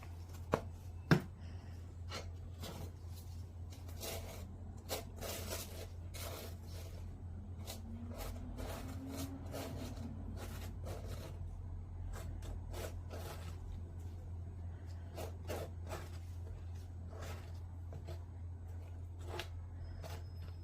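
Scattered light clicks, taps and rustles of things being handled, over a steady low hum.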